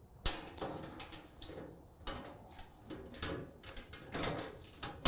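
Metal back panel of a gas barbecue being fitted over bolts and slid up into place, a series of irregular knocks, clicks and short scrapes of sheet metal.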